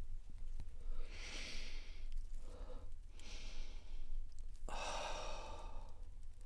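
A man breathing audibly while eating: three long, hissy breaths about a second apart, the last one the loudest.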